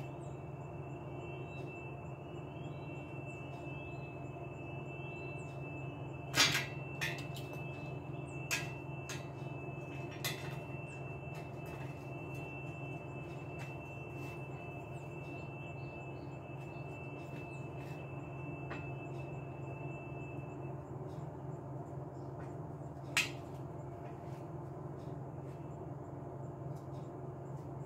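A steady low machine hum with a thin high whine that stops about three quarters of the way through, and a few sharp knocks: five in all, four close together in the first half and one near the end.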